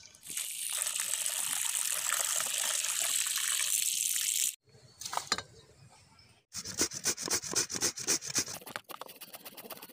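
Water splashing and pouring as cut papaya pieces are rinsed in a plastic bowl. About six and a half seconds in it gives way to papaya being grated on a stainless-steel box grater: quick rasping strokes, several a second, softer near the end.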